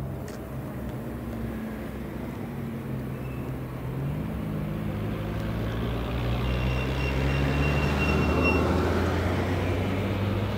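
Night traffic atmosphere: a low engine hum that shifts in pitch about four seconds in and swells as a vehicle passes near eight seconds in. A thin high whine runs over the loudest part.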